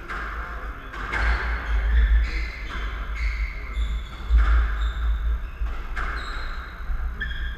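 Squash rally: the ball is struck by racquets and smacks off the walls, giving sharp cracks about once a second, with shoes squeaking on the wooden court floor between shots.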